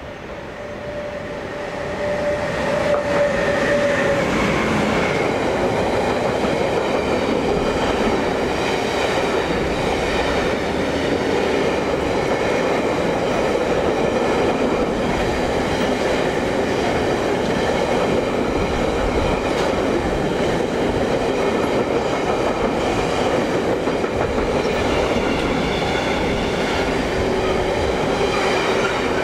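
Electric train running past on the line: the sound swells over the first couple of seconds, then holds a steady loud rumble of wheels on rail with clickety-clack, and steady ringing tones ride above it.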